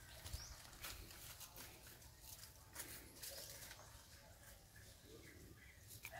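Near silence with faint, scattered rustles and crackles of dry leaf litter disturbed by monkeys moving over it.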